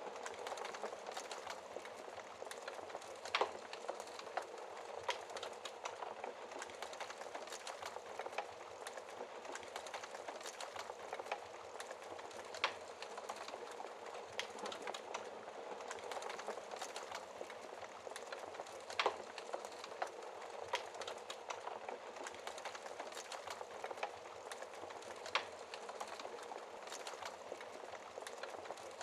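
Fireplace fire crackling: a steady soft hiss of burning with frequent small pops and a few louder, sharper snaps spread through.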